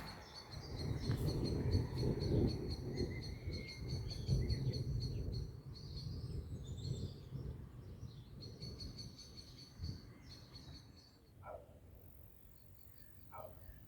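Thunder rumbling low and uneven, fading out over about ten seconds. Birds call and insects chirp steadily throughout.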